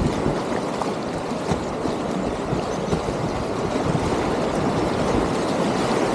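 Whitewater rapids rushing around a kayak: a steady, loud wash of churning river water with a few brief splashes.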